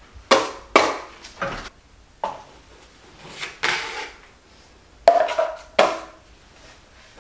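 Steel drywall taping knife scraping and clacking against the edge of a metal mud pan and over the wall while loading and spreading joint compound, in quick groups of sharp strokes with one longer scrape in the middle.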